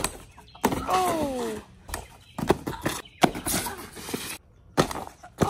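Trick scooter knocking and clattering, then the crash of a fall, with the rider and scooter hitting the tarp-covered ground in several sharp impacts. About a second in there is a brief tone that slides down in pitch.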